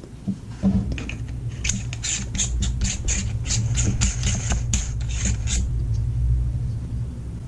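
Plastic parts of a compact camera microphone being screwed back together by hand: a quick series of small clicking scrapes, about four a second, from about a second in until near the end, over a low rumble of handling noise.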